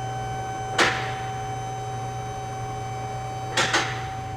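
Electric motor of a vehicle lift's hydraulic pump running steadily with a constant whine, with sharp metallic clicks once about a second in and twice near the end as the lift's safety locks catch.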